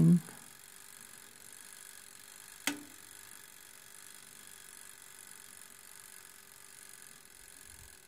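Toaster oven running with its wind-up mechanical timer ticking faintly and steadily, and a single sharp click about two and a half seconds in.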